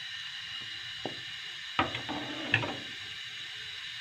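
Metal ladle stirring milk and rice in a steel pan, knocking and scraping against the pan a few times over a steady hiss, as the rice and milk for kheer cook on low heat.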